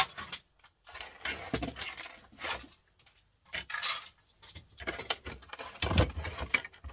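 Plastic and metal printer parts being handled and knocked together: irregular clattering and rattling, with a heavier knock about six seconds in.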